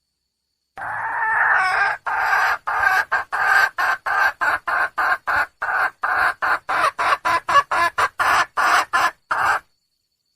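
Red junglefowl hen clucking: one drawn-out call about a second in, then a fast, even run of short clucks at about three a second that stops shortly before the end.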